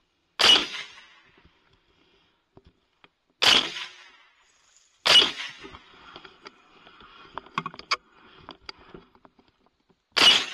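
Four rifle shots from a 300 Blackout: one about half a second in, then about three and five seconds in, and the last near the end. Between the third and fourth shots a wire fence rattles and clinks close behind the shooter.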